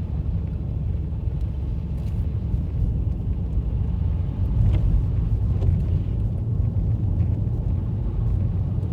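A car driving up a driveway, its engine and tyres making a steady low rumble that grows slightly louder about halfway through.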